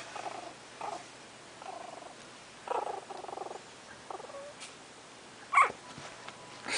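Puppies growling as they play-fight: a string of short, rough, rattling growls, the longest about three seconds in, with a short sharp cry near the end.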